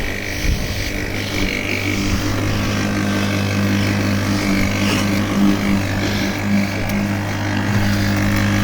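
Works 40 cm cordless lawnmower's electric motor and blade running steadily while cutting grass, a constant hum.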